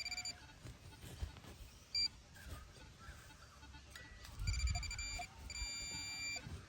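Metal detector's electronic target tone sounding over a buried coin: a short blip about two seconds in, then two longer high tones near the end, with low handling thuds under the first.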